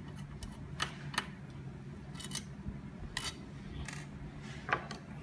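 Scattered light clicks and taps of a screwdriver and small M3 screws against the Wanhao i3 Plus control-box cover as the last screw is undone and the cover is handled, about half a dozen in all, over a faint low hum.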